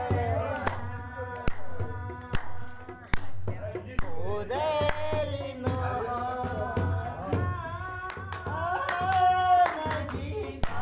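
A woman sings a song while others clap along by hand, with sharp claps or drum strokes throughout and a rope-tensioned dholak drum sounding low underneath.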